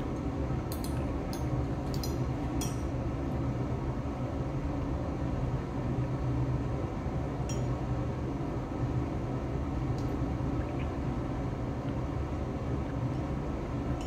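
Glass clinking several times, quick clinks in the first few seconds and a couple more later, from a glass conical flask being swirled under a burette tip, over a steady low room hum.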